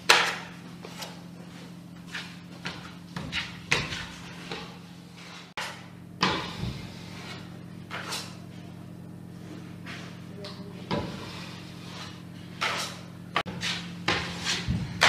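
Kitchen clatter: irregular short knocks and clicks over a steady low hum, the sharpest knock at the very start.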